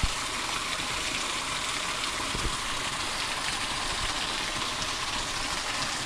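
Water falling steadily from a small man-made waterfall, an even splashing hiss with no pauses.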